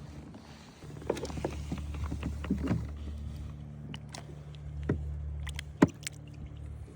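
Scattered knocks and clicks of fish and gear being handled on a fishing kayak, the sharpest a little before six seconds in, over a steady low hum that stops near the end.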